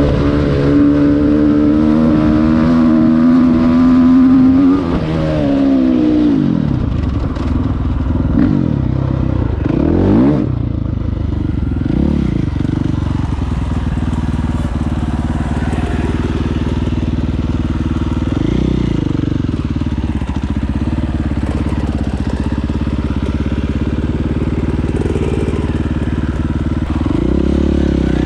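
Dirt bike engine running while being ridden. It is held at high revs for the first five seconds or so, then drops back and rises again in short revs a few times.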